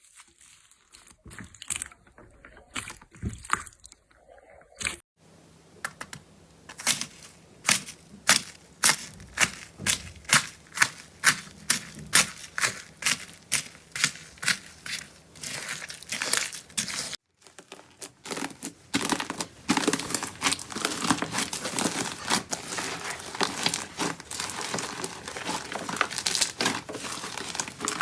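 Slime being worked by hand, making crisp crackling and popping sounds. For a stretch they come as sharp pops about two a second; after a brief break they turn into denser, continuous crackling.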